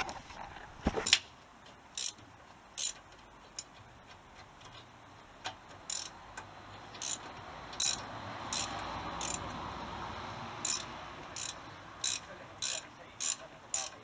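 Sharp metallic clicks, about one a second at uneven spacing, from steel tools working a spring clamp onto the exhaust manifold-to-downpipe joint of a VW Golf Mk2, with a soft hiss swelling in the middle.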